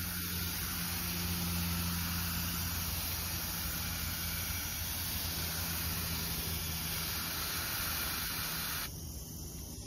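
Garden hose spray nozzle on its mist setting, spraying a fine mist of water onto a car window: a steady hiss that stops shortly before the end, over a low steady hum.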